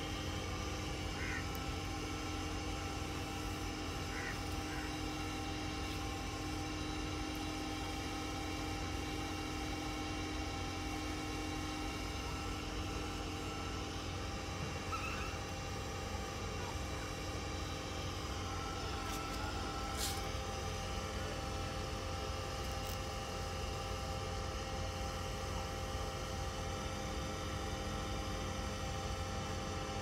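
Steady low hum and rumble with a few constant faint tones above it, and a single sharp click about two-thirds of the way through.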